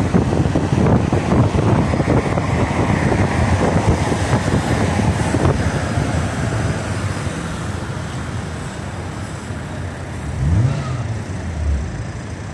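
City road traffic, with cars passing close by and wind buffeting the microphone. The noise eases off about halfway through, and a vehicle swells up briefly near the end as it passes.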